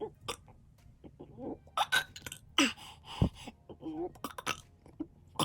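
A person forcing out a quick string of short burps, about a dozen, brought up by carbonated ginger ale. Some are clipped and hiccup-like, and there is one sharp low thump a little past the middle.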